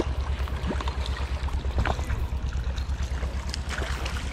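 Steady rush of river water with a low, pulsing rumble on the microphone and a few light clicks.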